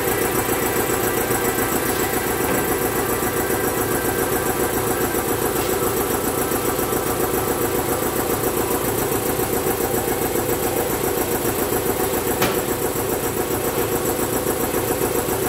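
A motor running steadily with a fast, even pulse. A single sharp click about twelve seconds in.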